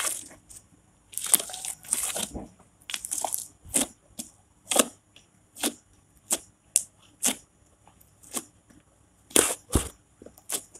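Glittery PVA-glue slime being squeezed and poked by hand: a few longer wet squishes while it is kneaded in the first few seconds, then a string of short sharp clicks as fingertips push into it, irregular, with quiet gaps between.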